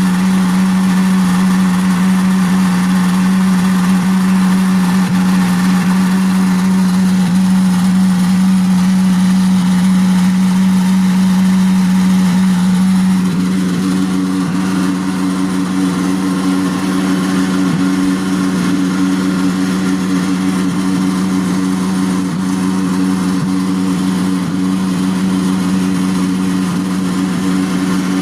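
Frigidaire dishwasher running with a loud, steady hum: the noise it is making. About halfway through, a second, higher hum joins and the sound gets slightly quieter.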